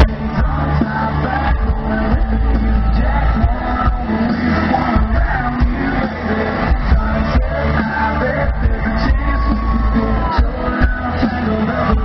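Loud live country music from a band, with a man singing lead into a microphone.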